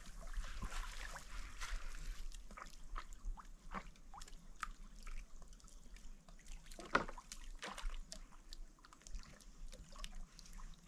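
A dog paddling in water: scattered small splashes, drips and trickles.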